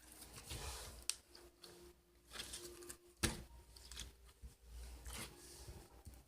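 Slime being squeezed and stretched by hand: soft, irregular squishing and crackling with a few sharp clicks, the loudest a little over three seconds in.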